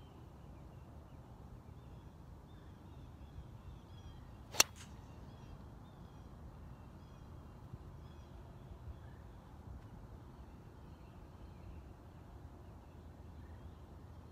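Driver striking a golf ball off the tee: a single sharp crack about four and a half seconds in, over a faint outdoor background.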